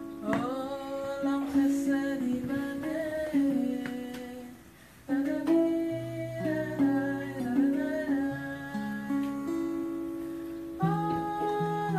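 Acoustic guitar and singing in a slow song, with long held notes beneath the voice. The music drops away briefly about four and a half seconds in, then the next phrase begins.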